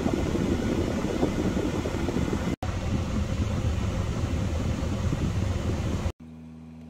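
Dashboard ventilation blower of a 2008 Hyundai Grand Starex running hard, a loud steady rush of air through the vents while hot air from the heater is blowing. About six seconds in it cuts to a much quieter steady hum.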